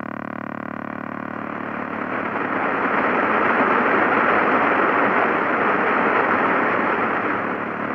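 Car speaker playing the electrical noise of a Joying Android head unit: a steady electronic whine of many stacked tones, present even at low volume and blamed on the unit's poor internal filtering. From about two seconds in, a loud hiss of FM static from a dead frequency rises over it as the volume is turned up, then drops back near the end.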